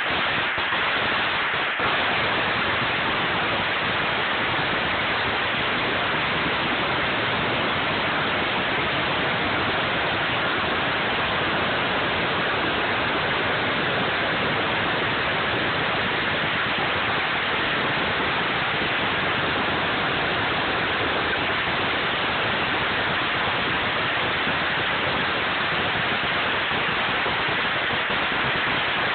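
A very long firecracker string going off nonstop, its bangs so dense that they blur into a steady, loud crackling hiss.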